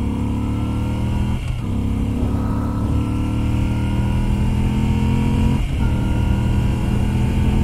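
A Moto Guzzi V7 III Stone's air-cooled transverse V-twin pulls under acceleration on the road, its pitch climbing steadily. It is cut off twice by quick upshifts, about a second and a half in and again near six seconds, each time dropping in pitch and climbing again.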